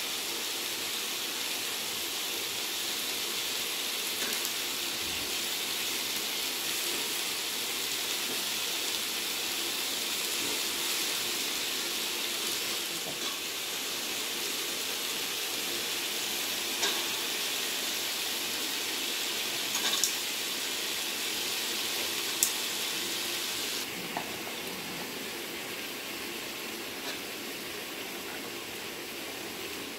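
Vegetables frying in a large aluminium pot, a steady sizzling hiss, with a few sharp clicks in the middle; the hiss eases slightly about three-quarters of the way through.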